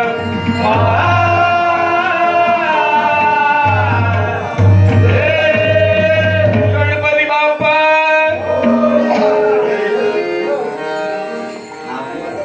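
A Marathi devotional bhajan: a man singing long, bending melodic lines to harmonium and tabla accompaniment, the music easing off near the end.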